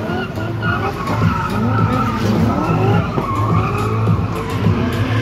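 Drift cars sliding with engines revving hard and tyres screeching, the engine pitch rising and falling again and again as the throttle is worked.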